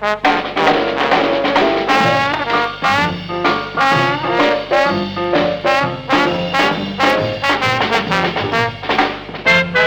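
Background music: an upbeat swing tune with brass, trombone and trumpet playing lively phrases.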